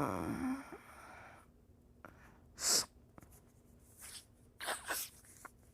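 A person with a cold stifling sneezes: a wavering, pitched vocal sound fades out at the start, a short, sharp stifled sneeze comes a little under three seconds in, and a few quick breathy bursts follow near the end.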